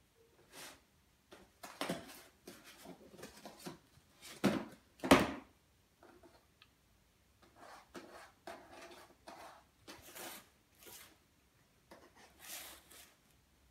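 A rolled cardboard tube being clawed, pushed and dragged by a cat against a wooden floor and furniture, making irregular scrapes and rustles. There are a few sharper knocks, the loudest around four to five seconds in.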